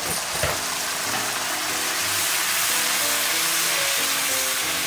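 Onions with garlic and ginger paste sizzling in hot oil in a frying pan, a steady hiss as a splash of water added to the pan boils off.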